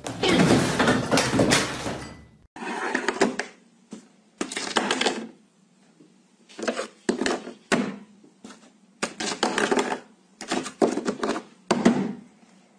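Repeated bursts of quick clattering and tapping on a wooden tabletop, each lasting about half a second to a second with short pauses between.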